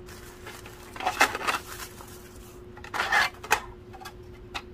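Hands unpacking a plastic tray tower: rustling and clattering of packaging in two short bursts, about a second and three seconds in, with a few sharp plastic clicks, over a faint steady hum.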